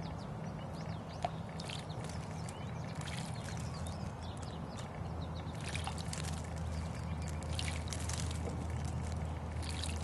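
A house sparrow bathing in a stone birdbath: quick runs of small splashes and flicked water, busiest in the second half, over a steady low hum.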